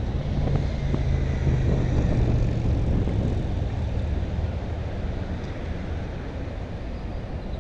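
Cars and a pickup truck driving past across an intersection, a low engine hum that is loudest in the first few seconds and then fades under steady traffic rumble.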